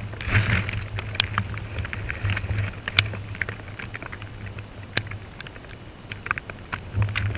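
Underwater ambience picked up by a camera in its housing: a steady low hum with scattered sharp clicks and crackles.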